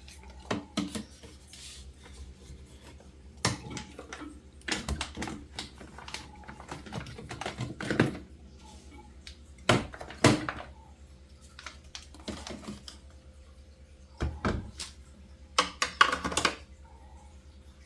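Irregular knocks and clatters of food containers, jars and bottles being set down on refrigerator shelves, some in quick clusters, over a faint steady hum.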